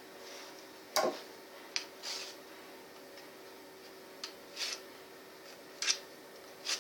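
Scattered sharp plastic clicks and brief rubbing from hands working at the stuck cap of a small acrylic paint bottle, about half a dozen irregular clicks spread over several seconds.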